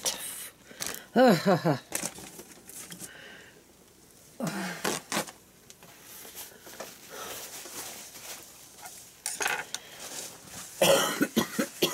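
Kitchen items clinking and knocking as dishes, cans and utensils are handled around a ceramic crock pot. A few short wordless vocal sounds come near the start, about four seconds in, and near the end.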